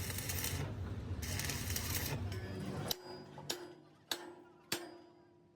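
Workshop machinery running with a low hum and two spells of hiss. It stops about halfway through, and then metal is struck four times, about half a second apart, each strike ringing briefly.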